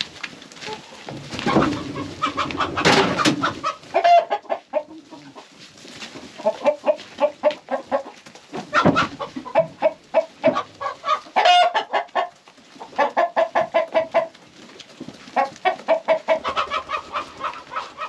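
A flock of laying hens clucking, in quick runs of short clucks. There is a louder noisy scuffle about two to four seconds in.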